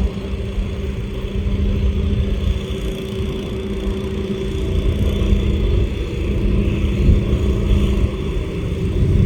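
Freight train cars rolling past: a steady low rumble, with a constant hum running through it.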